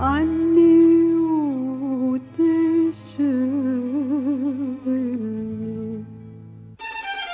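A woman singing an Arabic song: a single voice holding long notes, some with a wide vibrato, over a sustained low accompaniment. The voice stops a little after five seconds, and a fuller instrumental accompaniment enters near the end.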